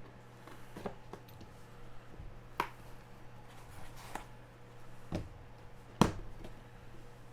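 A few separate sharp clicks and taps from hands handling a sports card box and its packaging as it is opened, the sharpest about six seconds in, over a faint steady hum.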